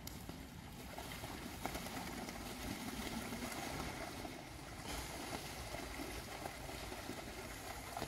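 Mallard ducks splashing and flapping their wings in the water: a steady rush of splashing with scattered small slaps.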